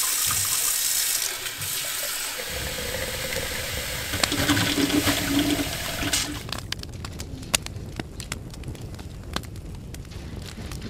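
Water gushing from a tap into a sink for about six seconds, then cutting off. A wood fire then crackles with sharp, irregular pops.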